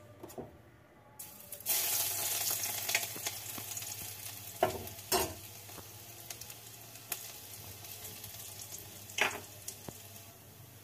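Chopped garlic hitting hot oil in a kadhai: a sudden loud sizzle about two seconds in that slowly dies down. A few short knocks of a utensil against the pan come through it.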